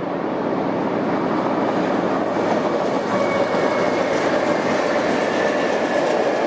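Freight train rolling past on the rails, its rumble and wheel noise growing steadily louder as it comes near, with a faint high whine from the wheels from about halfway in.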